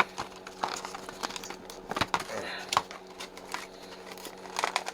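Hard plastic blister package being pried and torn open, the plastic crackling and snapping in irregular clicks, the sharpest about two seconds in.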